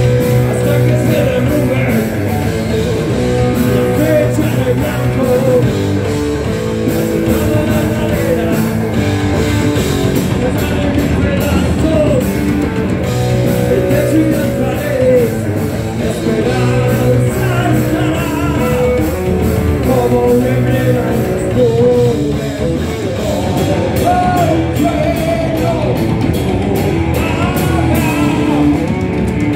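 Heavy metal band playing live at full volume: distorted electric guitars and drums, with a wavering melodic line over the riff.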